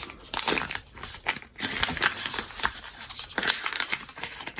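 Plastic packaging rustling and crinkling, with small irregular clicks and scrapes, as a product and its wrapping are opened and handled by hand.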